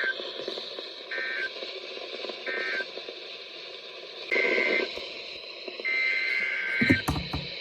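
EAS/SAME digital tones on NOAA Weather Radio: three short warbling data bursts, the end-of-message code closing the tornado warning, then longer header bursts opening the next alert. A burst of radio static and crackling clicks comes between them.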